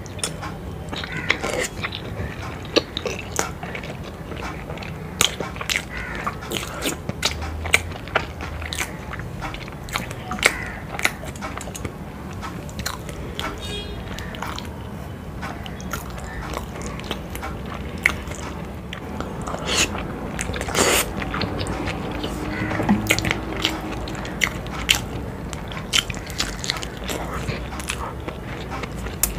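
Close-miked eating: biting into and chewing whole fried boiled eggs coated in thick, spicy egg curry, with many sharp, irregular wet mouth clicks and smacks.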